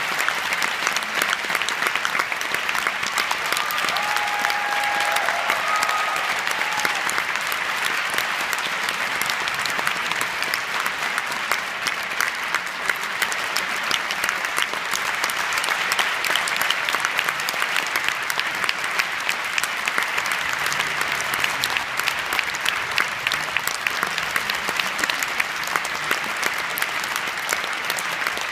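Theatre audience applauding steadily, a dense patter of many hands clapping at an even level.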